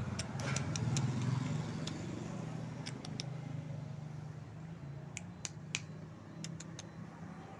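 Steady low hum of a motor vehicle engine running, with a handful of short sharp clicks scattered through it.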